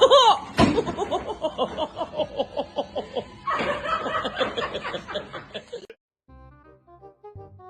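A run of rhythmic, laughter-like vocal sounds, about four short pulses a second, that cuts off suddenly about six seconds in. Soft music with piano-like notes follows.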